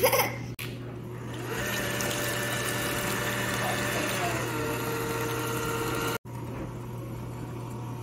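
Electric hand mixer running, its beaters whirring through eggs and brown butter in a metal saucepan with a steady whine; the motor's pitch drops slightly about four seconds in.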